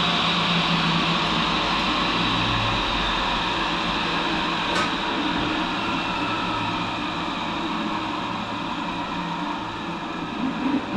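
Tool and cutter grinder running steadily, its wheel grinding the top of a carbide lathe tool bit, a steady hiss and hum that eases slightly toward the end. A faint click comes about halfway and a short knock at the very end.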